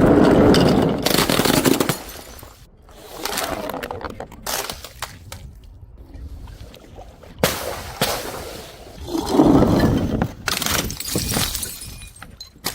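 Glass bottles smashing as they are thrown down stairs. The first crash, at the start, is the loudest and runs on for about two seconds; there is another big crash about nine seconds in, with smaller knocks and bits of breaking in between.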